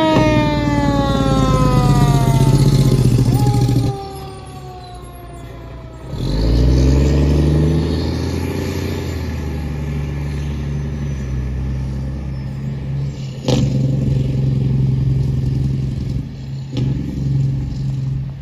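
A fire engine's siren is sounded briefly, jumping up in pitch and then sliding slowly down over a few seconds, while the truck's diesel rumbles heavily under its Jake brake. After a short quieter pause the diesel revs up rising in pitch and settles into a steady drone, with two sharp knocks near the end.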